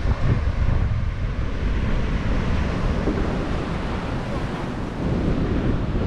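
Wind buffeting the microphone in a steady low rumble, over the hiss of surf washing onto the beach.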